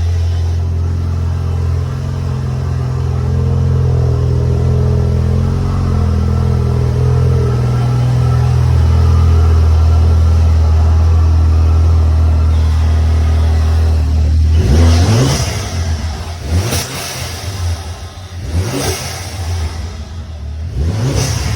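Chevrolet HHR engine and exhaust, with bolt-on modifications, idling with a steady low drone. About two thirds of the way in it is revved in several short blips, each rising in pitch and then dropping back.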